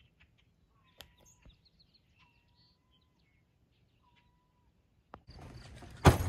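Quiet waterside stillness with faint light clicks and three thin, drawn-out whistled calls. About five seconds in a steady outdoor hiss starts, and near the end a loud thump of gear being set on a wooden picnic table while a backpack is packed.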